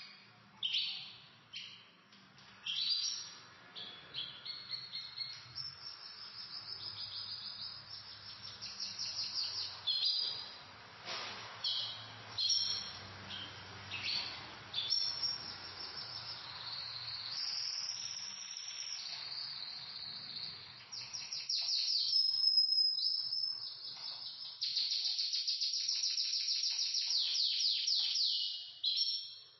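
Pet canaries singing: fast chirps and trilled phrases, ending in a long rolling trill near the end.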